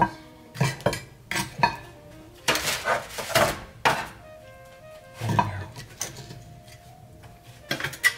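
Metal kitchen tongs knocking and scraping on a ceramic plate as roasted beef marrow bones are set down on it: a string of irregular knocks and clinks, with a longer stretch of scraping a few seconds in.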